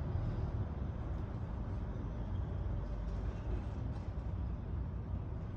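Steady low rumble of urban street background noise with traffic, with no distinct sound standing out.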